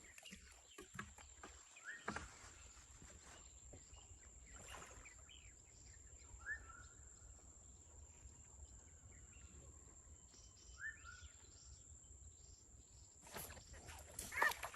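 Faint outdoor ambience: a steady high-pitched insect-like whine with a few short, faint bird chirps, and a sharp click near the end.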